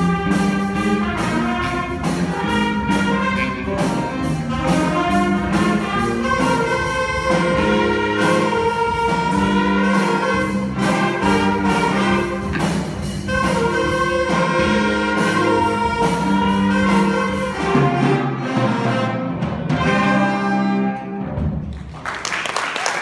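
Trumpet playing a solo with accompaniment, ending its final phrase about a second before the end, when applause breaks out.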